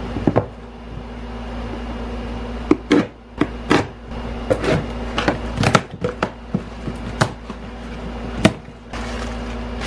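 A taped cardboard shipping box being handled and opened by hand: a string of sharp knocks, taps and short scrapes of cardboard starting about three seconds in, the loudest near the end, over a steady low hum.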